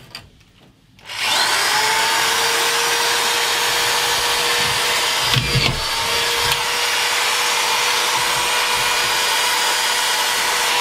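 Metabo SE 4000 drywall screwdriver with a collated-screw magazine starting about a second in and running steadily at high speed with a constant whine, driving 25 mm fine-thread screws into thin metal CW studs. A short low thud about halfway through, where the whine briefly dips.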